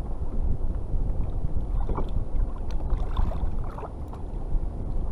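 Wind buffeting the microphone and sea water lapping against a kayak, a steady low rumble with a few faint knocks near the middle.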